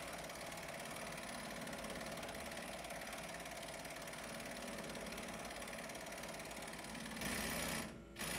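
A steady engine-like mechanical hum, louder for about two seconds near the end.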